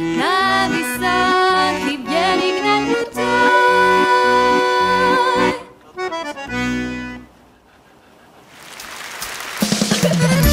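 Accordion music with sustained, wavering notes, which breaks off a little over halfway through. After a short, quieter lull, a rising swell leads into a different piece of music with a strong, regular beat near the end.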